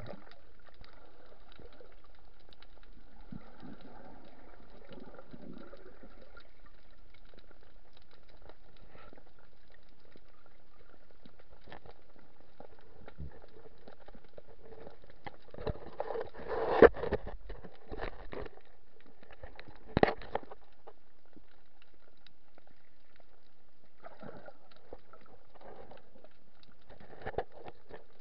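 Muffled underwater sound heard through a waterproof camera housing: a steady hiss with faint bubbling and crackling. A cluster of sharp knocks a little past halfway is the loudest part, with another knock a few seconds later and a small one near the end.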